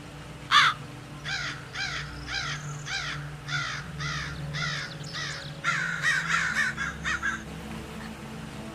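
Bird calling: one loud harsh call, then a run of about eight short calls in quick succession, then several overlapping calls.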